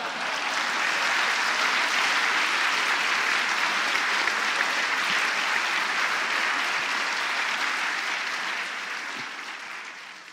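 Audience applauding, a dense steady clapping that builds over the first second and fades away near the end.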